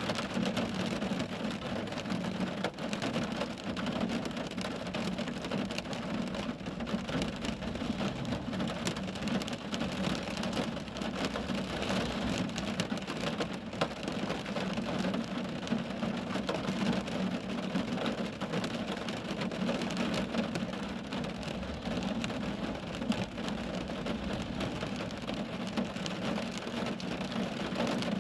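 Rain falling steadily, a dense even patter of many drops on a surface.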